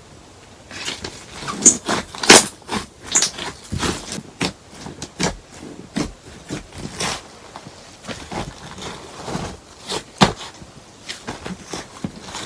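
Slime being squished and pressed by hand, making irregular sticky clicks and pops that begin about a second in.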